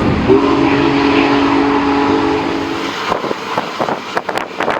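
Union Pacific Big Boy 4014's steam whistle sounding one long, steady chord for about two and a half seconds, heard from aboard the train. A run of sharp, irregular clicks and knocks follows near the end.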